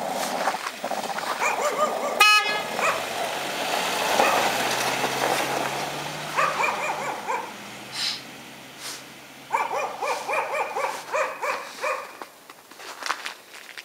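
Honda Element driving off with its engine running. A short, loud car-horn toot comes about two seconds in. Dogs bark in two bouts, about six seconds in and again around ten seconds.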